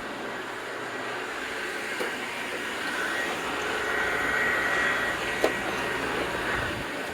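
Robot vacuum cleaner running with a steady whir. A high whine swells for a couple of seconds in the middle and then fades, and there is one sharp click about five and a half seconds in.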